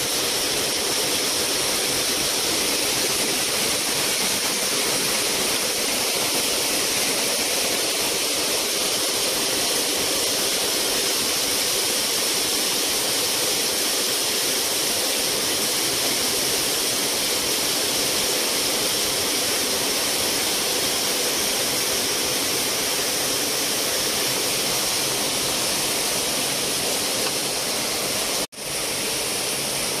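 Steady rushing, hiss-like noise at an even level, with a momentary dropout near the end.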